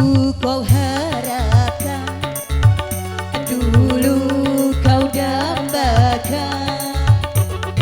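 Dangdut band music: a melody with a wavering vibrato over a steady drum and bass beat.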